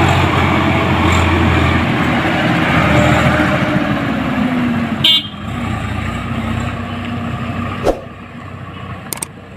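Swaraj 744 XT tractor's diesel engine running steadily close by as it hauls a fully loaded trolley. About five seconds in, the sound drops abruptly to a quieter, more distant vehicle sound.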